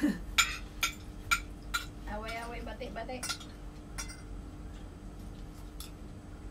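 Forks and spoons clinking against plates and bowls during a meal, with several sharp clinks in the first two seconds and a few more spaced out after. A short stretch of voice about two seconds in.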